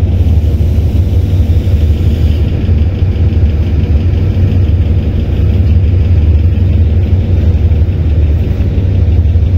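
Hitachi diesel-electric locomotive engine running steadily, a loud, even low rumble.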